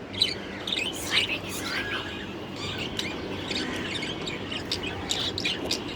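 A group of caged budgerigars chirping and chattering: many short high chirps overlapping.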